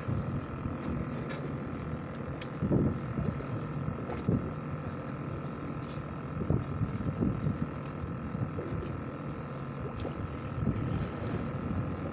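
Fishing boat's engine running with a steady hum, with irregular low rumbles rising a few times over it.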